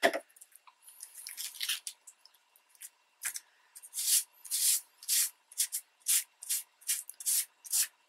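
Soft cloth rubbing back and forth over embossed magazine paper dampened with a water and alcohol mix, lifting the ink off the raised texture. It makes swishing strokes two to three a second from about three seconds in, after a brief knock at the start.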